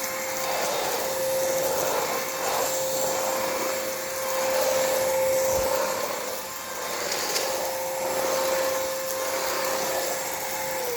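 Kmart Anko cordless stick vacuum cleaner running with a steady motor whine, sucking up cereal and paper scraps from a hard floor. The motor winds down just before the end.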